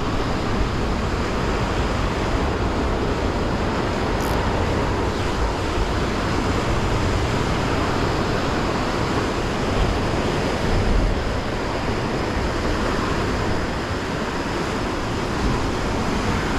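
Heavy sea surf breaking and churning over coastal rocks: a steady, unbroken wash of water, with wind on the microphone.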